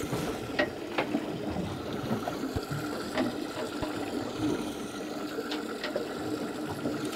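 Water trickling and churning in a boat's live bait tank over a steady pump hum, with a few light taps along the way.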